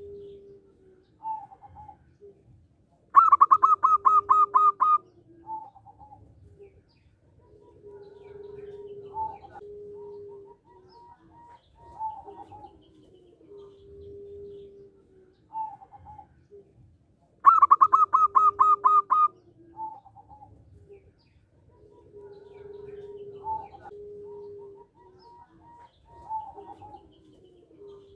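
Zebra dove (perkutut) singing: twice, about fourteen seconds apart, a loud, rapid run of about eight staccato notes, with softer, lower coos and short notes in between.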